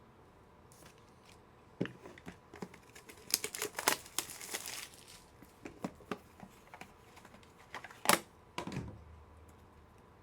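Crinkling and tearing of a trading-card pack's wrapper, with scattered clicks and taps of cards and packaging being handled. There is a rustling tear about three to five seconds in, and a sharp knock about eight seconds in, which is the loudest sound.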